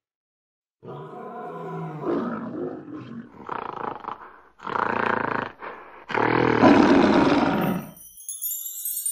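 A series of about five loud wild-animal roars, the last one the longest and loudest. A bright rising chime begins near the end.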